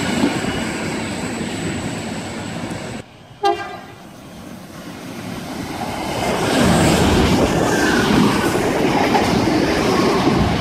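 NSW TrainLink diesel railcar trains running on the track. A departing train's running noise comes first, then a short horn blast about three and a half seconds in. After that an Xplorer set approaches, growing louder, and runs close past with wheels clattering over the rails.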